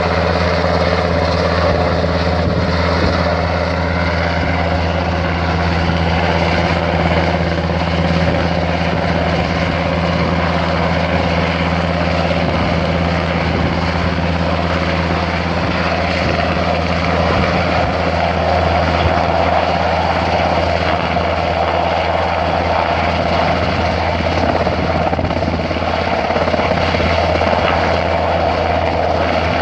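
Search-and-rescue helicopter hovering low close by, its rotors and engines running steadily and loud. A higher whine grows stronger about halfway through.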